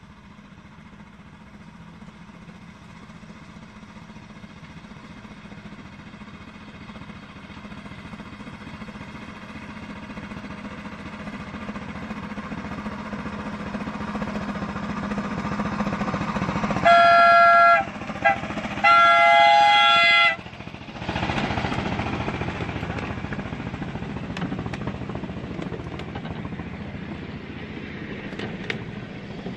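Miniature railway locomotive running along the track, its running noise and low hum growing louder as it approaches and fading as it moves away. Near the middle it sounds its horn twice, a short toot and then a longer one, with a brief blip between.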